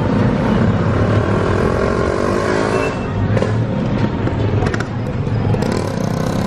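Street traffic: cars and a motorcycle moving slowly, with a steady low engine hum.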